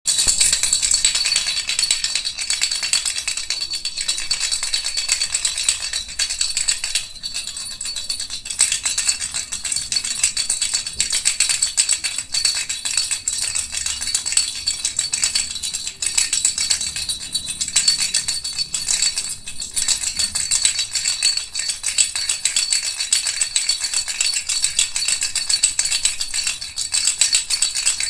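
A plastic baby rattle shaken over and over, a dense, continuous high-pitched rattle with a few brief lulls.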